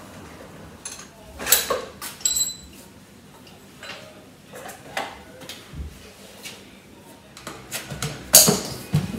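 Scattered metallic clinks and knocks of hand tools and parts as a Honda Dio scooter's front wheel is being taken off, a few of them ringing briefly; the loudest knock comes near the end.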